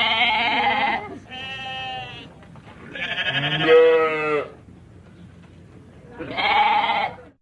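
Sheep bleating: four separate quavering bleats in a row, the loudest and longest a little past halfway.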